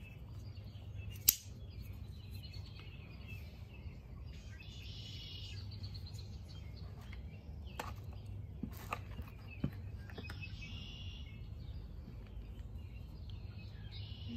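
Sparse clicks and knocks of knives being handled and laid on a table, the sharpest about a second in and a few lighter ones near eight to ten seconds. A bird chirps in quick trills twice in the background, around five seconds in and again around ten, over a low steady hum.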